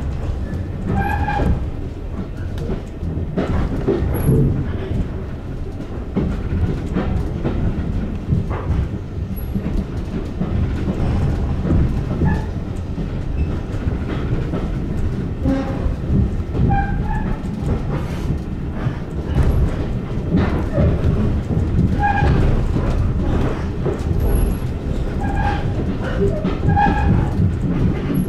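Passenger railway carriage running along the track, heard from inside: a steady low rumble of the wheels on the rails, with clicks over the rail joints and short squeaks now and then.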